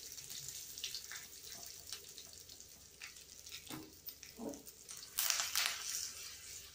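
Hot oil sizzling in a small tempering ladle as mustard seeds, dals, a dried red chilli, curry leaves and asafoetida fry for a South Indian tadka, with scattered crackles as the mustard seeds begin to splutter. There is a louder burst of crackling about five seconds in.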